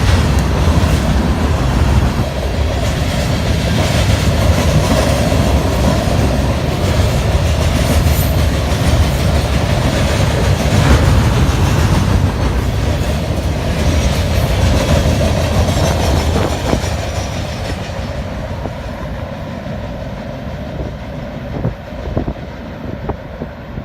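Train cars rolling past on the rails with a deep rumble, fading steadily over the last third as the train moves off.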